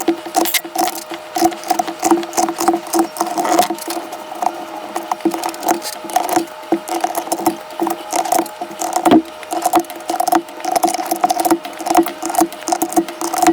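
Typing on a mechanical keyboard: a fast, irregular run of key clacks, several a second, with a faint steady tone underneath.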